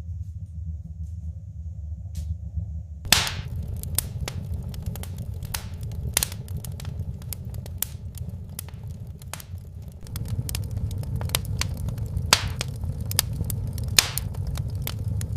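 Wood fire crackling inside a small wood-burning stove: irregular sharp pops over a steady low rumble of the burn. The pops begin about three seconds in and everything gets louder about ten seconds in.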